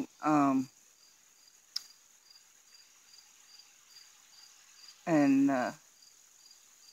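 Crickets chirping in a steady, even rhythm, about three high chirps a second. A woman's voice sounds briefly twice, near the start and about five seconds in.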